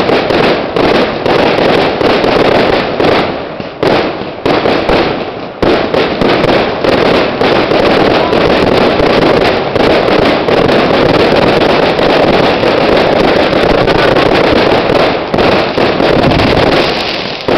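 Fireworks display: a loud, rapid barrage of bursting shells. Separate bangs come in quick succession at first, merge into an almost continuous rattle of explosions through the middle, and break up into separate bangs again near the end.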